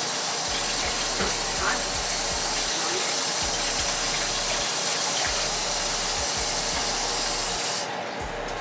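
Kitchen tap running in a steady rush of water, shut off abruptly near the end.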